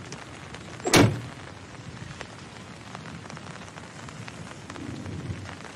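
Steady rain with scattered small drop ticks, and one sharp, loud crack about a second in that dies away quickly.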